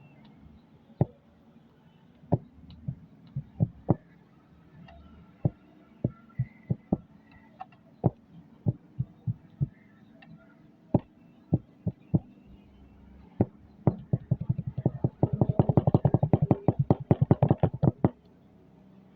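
Short, dull taps at irregular intervals, then a fast run of them, several a second, for about four seconds near the end.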